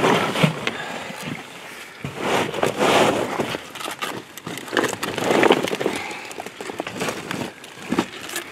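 Handling noise as a large wels catfish is gripped by the jaw and hauled into a boat: irregular rushes of rustling and splashing, with sharp knocks, in several surges.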